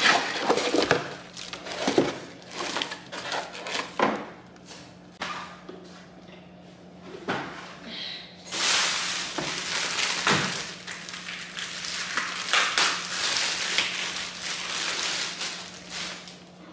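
Knocks and rustling as parts and small plastic bags are handled in a cardboard box with a moulded pulp insert. From about halfway through, continuous crinkling of plastic bags as slow-juicer parts are unwrapped.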